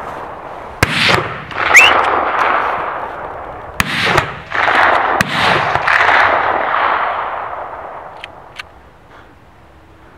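Hunting guns firing a rapid volley: about five shots in the first six seconds, each rolling away in a long echo, after which the firing stops and the sound dies down.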